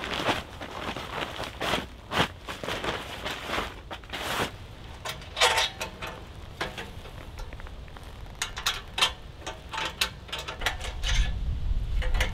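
Rustling, then metal clinks, knocks and rattles, some ringing briefly, as a small stainless steel wood stove is assembled by hand.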